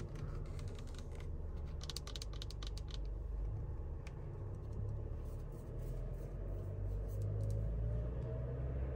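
Long fingernails tapping and clicking on a Mercedes-Benz steering wheel's centre hub. A quick flurry of taps comes about two seconds in, with scattered taps later. Under the taps, the car's engine hums steadily at idle.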